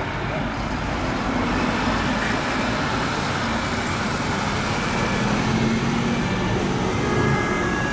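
Steady road-traffic noise from a slow convoy of police motorcycles and fire engines, with a low engine hum that grows a little stronger about two seconds in.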